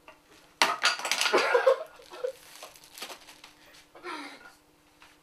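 Packaging being handled: a burst of rustling and clattering about half a second in, then fainter scattered rustles and knocks.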